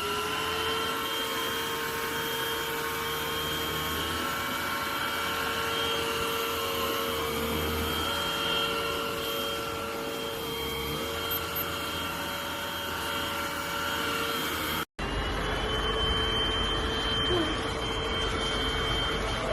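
Philips V20Pro cordless vacuum cleaner's motor running with a steady whine, its pitch dipping briefly a few times. About fifteen seconds in the sound drops out for an instant, then the same steady whine carries on.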